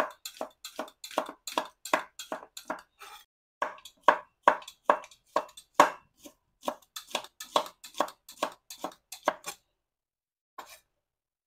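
Kitchen knife slicing shallots on a thick wooden chopping board: sharp knocks about three a second as each stroke hits the board, with a brief pause about three seconds in. The chopping stops a couple of seconds before the end, with one last knock after.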